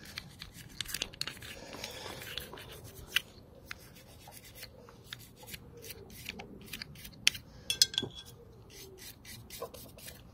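Hand scrubbing and rubbing on the rear brake caliper pistons of a Honda VFR800 as they are cleaned, with scattered light clicks and a few sharper clicks about seven to eight seconds in.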